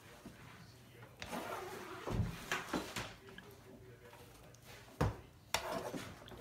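A spoon serving braised beef tendon and radish from a pot onto a plate: several knocks and clinks of the spoon against pot and plate, with soft scraping between. The loudest knocks come about two seconds in and about five seconds in.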